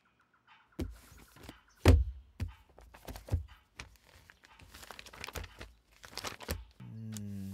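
Paper rustling and clicks of a ledger-style register book being handled and its pages turned and written on, with one thump about two seconds in. A low steady hum starts near the end.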